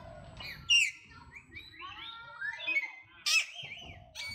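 Shrill animal calls: a run of short high-pitched squeaks and chirps, most sliding down in pitch, with two much louder ones about a second in and just past three seconds in.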